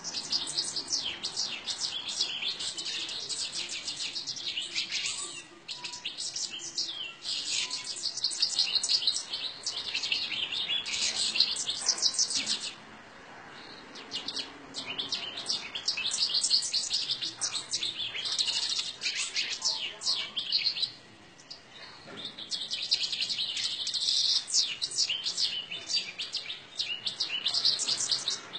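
Small birds chirping and twittering rapidly, many high calls overlapping in long busy spells, twice dropping away briefly into a lull.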